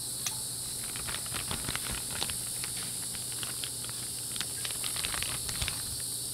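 Chicken sizzling on a grill, with fat crackling and popping irregularly several times a second until near the end. A steady chorus of crickets runs behind it.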